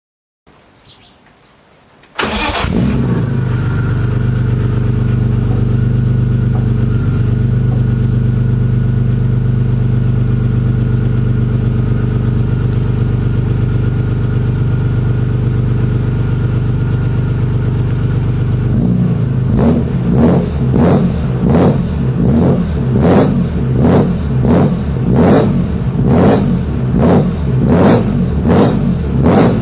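BMW E36 M3 3.2-litre straight-six, fitted with a SuperSprint full race exhaust (headers, non-resonated mid pipes, racing muffler), fires up about two seconds in and idles steadily. From about two-thirds of the way through it is revved in quick, short throttle blips, a little more than one a second.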